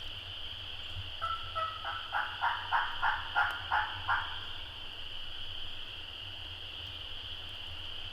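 Wild turkey yelping: a series of about nine yelps at roughly three a second, swelling and then fading over about three seconds, over a steady high insect drone.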